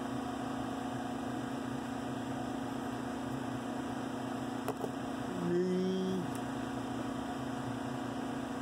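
A steady low machine hum with a constant tone, with a faint click a little after the middle and a brief low tone about a second long just after it.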